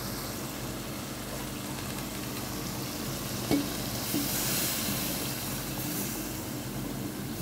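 Chicken and tinda (apple gourd) curry sizzling in the pan as water is poured in and stirred, the hiss swelling about four seconds in. A single spoon knock on the pan a little past three seconds in, over a steady low hum.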